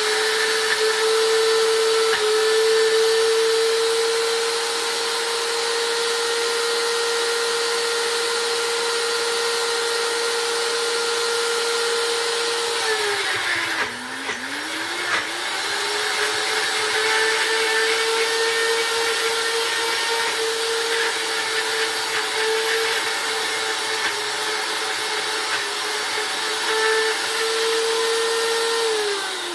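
NutriBullet Rx blender motor running steadily with a high hum, blending puppy food with water into a mush. About halfway through, its pitch sags and recovers as the cup is jostled, and at the very end the motor starts winding down.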